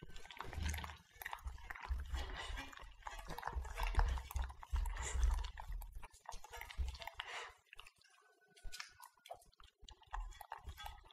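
Two Italian greyhounds licking stainless steel bowls clean of raw minced duck: wet lapping, smacking and tongue clicks, with low knocks as the bowls shift on the tray. The licking eases off for a moment about eight seconds in, then resumes.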